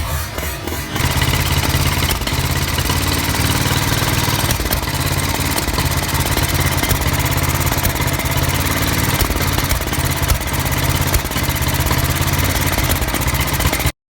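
Norton 500T single-cylinder engine running from about a second in, uneven with occasional sharp cracks, the loudest near ten seconds: a carburettor misfire with backfires. The sound cuts off abruptly just before the end.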